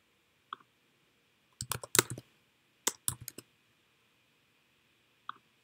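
Computer keyboard keys typed in two quick bursts of several keystrokes, with a faint single click shortly before and another near the end.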